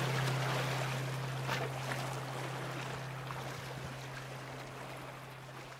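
Water lapping and trickling, with one low note from the song's accompaniment held underneath. It all fades out steadily as the song ends.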